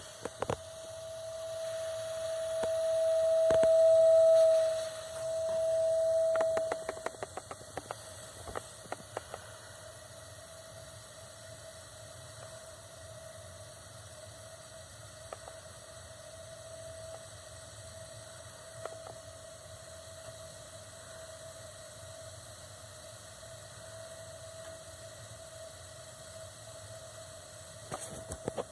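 Water heater giving off a steady droning tone that is loud for the first several seconds, dips briefly about four and a half seconds in, returns, then settles to a quieter tone with scattered light ticks. The owner traces the noise to the burner jet, since disturbing the jet makes it stop.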